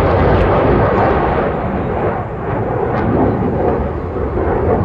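Military jet flying over: a loud, steady jet roar that dips briefly about two seconds in and then swells again.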